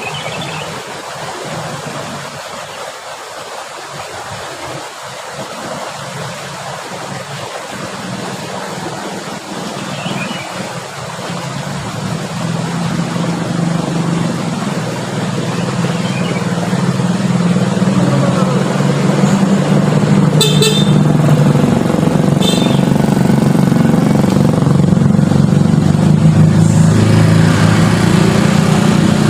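A motor vehicle's engine running with a low, steady hum that grows louder through the second half, as if the vehicle is drawing near. Two brief high-pitched sounds cut in about two-thirds of the way through.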